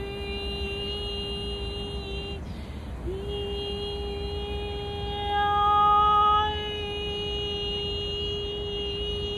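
A woman's voice toning a long, steady held note. A short breath break comes about two and a half seconds in, then a second long held note follows at the same pitch, swelling louder for about a second in the middle.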